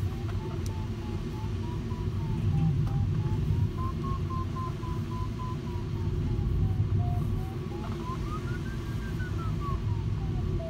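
Electronic variometer in a LAK17a glider beeping in quick, even pulses, its pitch drifting up and down and rising to its highest about three-quarters through before falling again, the climb tone of a glider working a thermal. Under it runs a steady rush of airflow noise in the cockpit.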